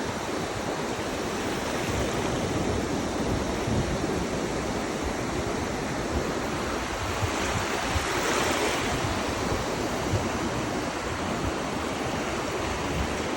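Ocean surf: waves breaking and washing ashore in a steady rush, swelling once a little past the middle as a wave breaks.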